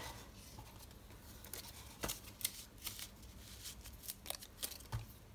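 Cardstock card being handled and pressed closed, then set down on a craft mat: faint paper rustles and a scatter of small clicks and taps.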